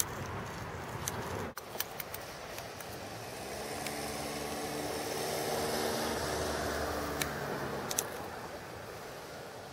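Steady outdoor background noise with a motor vehicle's engine hum that swells from about three and a half seconds in, peaks, and fades away again, as of a vehicle passing. A brief dropout about one and a half seconds in, and a few light clicks.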